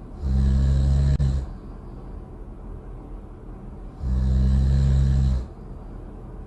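Loud snoring: two long, low buzzing snores, each just over a second, about four seconds apart.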